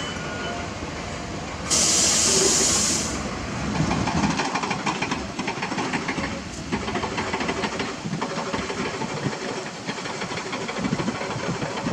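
A heavy truck's air brakes venting in one loud hiss of about a second and a half, a couple of seconds in, just after a reversing alarm stops. Heavy diesel machinery then keeps running with a rattling clatter.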